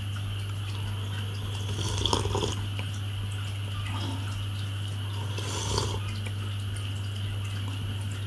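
A person sipping hot bay leaf tea, two short slurps about two seconds in and again near six seconds, over a steady low hum.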